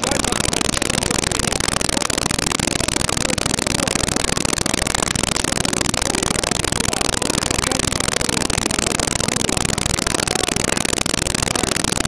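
Loud, steady hiss-like noise from a badly distorted recording, with no distinct shots, bangs or voices standing out.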